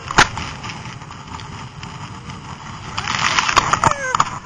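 Steady rushing noise of a snowmobile-towed inflatable banana boat sliding over snow, swelling again about three seconds in. A sharp knock sounds just after the start.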